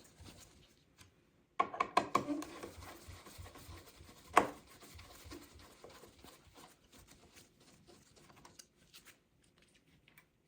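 Screwdriver working out the screws of a door's strike plate: faint scraping and rubbing, with a cluster of sharp metal clicks about a second and a half in and one loud click about four seconds in.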